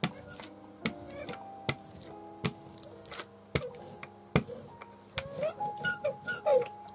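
Ink dauber tapping ink onto an end-grain woodblock: separate sharp taps, roughly one a second, irregularly spaced. Soft background music with held notes underneath.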